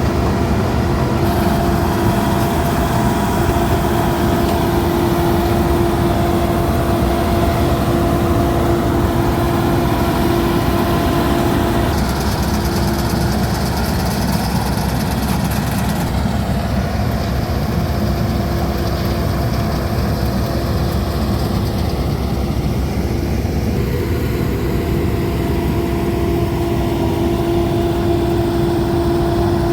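Laverda Fiatagri 3790 combine harvester running steadily under load, a dense engine drone with a steady whining tone over it. The whine fades out for several seconds in the middle and comes back near the end.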